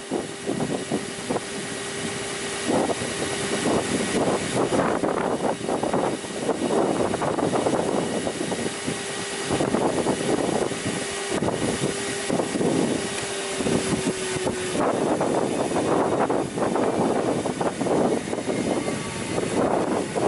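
Felder FS 722 long-belt sander running with no workpiece: motor and sanding belt running steadily, with a whirring hum that stops about three quarters of the way through while the belt noise goes on.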